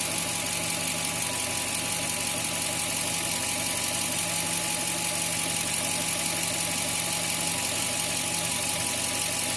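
Toyota Tundra's 4.7-litre V8 idling steadily with no vacuum-leak hiss: the leak behind its lean code P0171 is gone and the fuel trims read normal.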